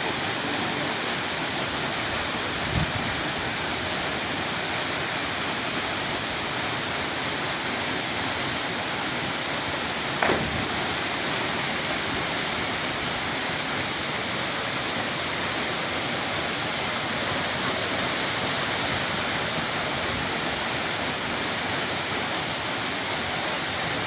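Waterfall: a steady, dense rush of falling water that holds even throughout, with one brief knock about ten seconds in.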